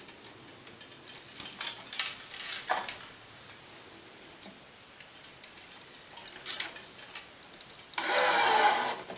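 Light clicks and handling noises at a racquet stringing machine as the string is set in the tension head's gripper, then about a second of steady whirring near the end as the electronic tension head pulls the center main string to tension.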